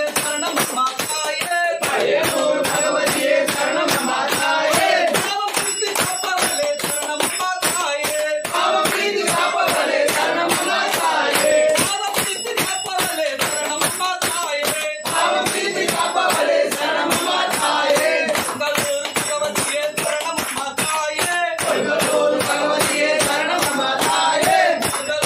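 Devotional singing for an Ayyappan pooja, voices carrying a melody over a steady, fast beat of percussion strikes.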